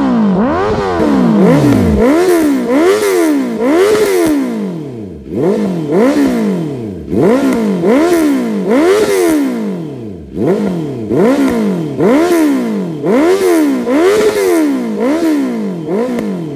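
2019 Honda CB650R's inline-four engine revved repeatedly with quick throttle blips through a full aftermarket exhaust system with a Black Knight muffler. The pitch climbs and drops back about once a second, with a few short pauses between groups of blips.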